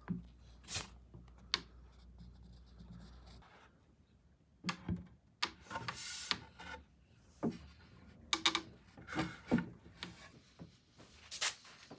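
Wooden furniture parts being handled and pushed together: a string of short rubs and light knocks as a shelf panel is seated into the glued notch of a square wooden leg.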